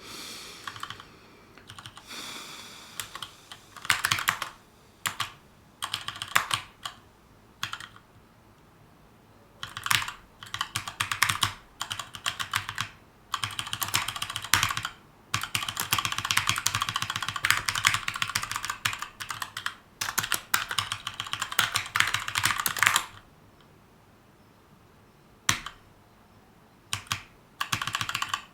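Typing on a Keychron K2 mechanical keyboard with brown tactile switches in an aluminium frame: quick runs of key clicks and thocks in bursts, with short pauses. The longest unbroken run comes in the second half, followed by a pause of a couple of seconds before typing resumes near the end.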